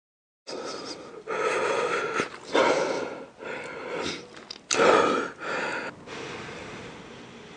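Food-preparation handling noises: a string of short rustling and scraping swells, starting suddenly about half a second in and easing off over the last couple of seconds.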